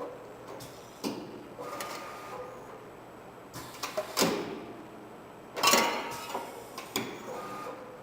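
Automatic CNC channel letter bending machine at work: a series of irregular mechanical clanks and knocks, with two louder, longer ones about four and six seconds in, and brief faint whines between them.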